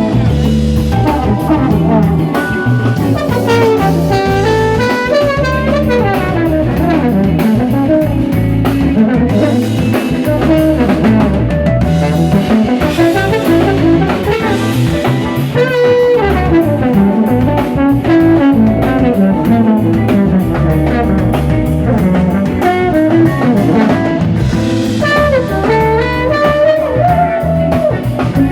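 Live band playing soul/funk with drum kit, electric guitar and horns, a continuous groove with melodic horn lines.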